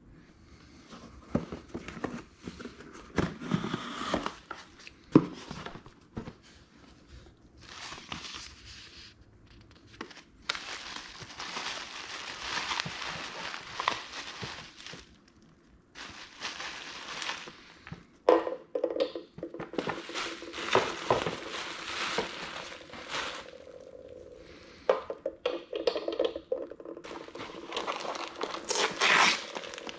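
Plastic bubble wrap crinkling and rustling in irregular spells as it is handled and pulled apart in a cardboard box, with occasional sharp knocks.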